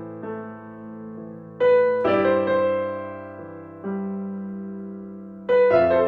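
Piano-like keyboard playing slow sustained chords, a new chord struck roughly every two seconds and left to ring and fade.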